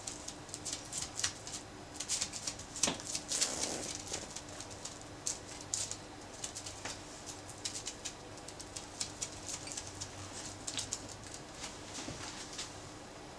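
Sticky sushi rice being pressed and spread by hand over a sheet of nori on a bamboo rolling mat: irregular soft squishes, pats and small clicks, busiest a few seconds in and thinning out near the end.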